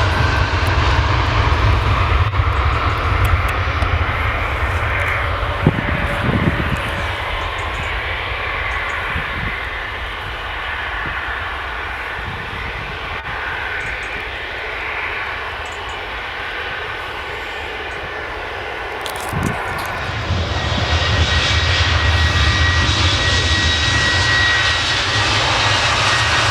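Boeing 737 jet engines at takeoff power: a loud low rumble with a rushing haze above it eases off after about six seconds. About twenty seconds in it grows loud again, now with a steady high whine.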